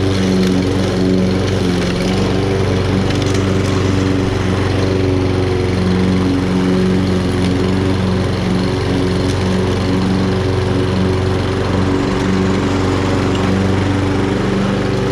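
Walk-behind push mower's small single-cylinder engine running steadily at speed. It now runs after water in the fuel had kept it from starting.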